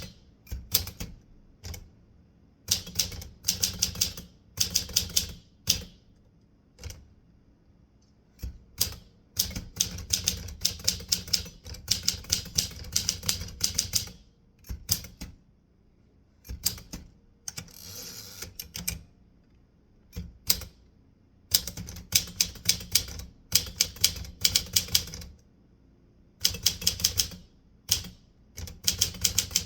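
Typewriter being typed on: runs of quick, sharp keystrokes in bursts of a second or two, separated by short pauses.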